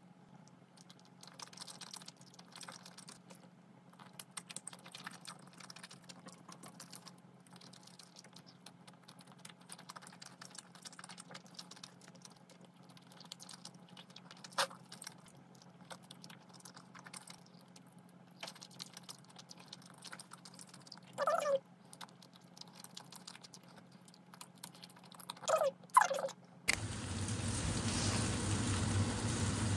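Soft close-up eating sounds: faint mouth clicks and chewing of rice-cake skewers, with a few brief squeaks. About 27 s in, this cuts to a pan of mala noodles and meat sizzling loudly as it is stir-fried with a wooden spatula.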